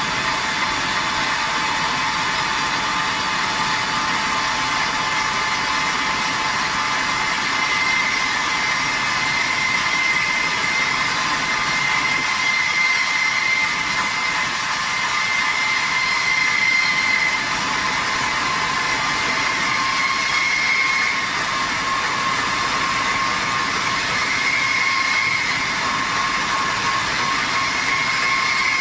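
Diamond wire saw with a Volter-type diamond wire dry-cutting a steel H-beam: a steady high whine over a hiss as the wire runs through the steel. The cut goes smoothly without the wire catching.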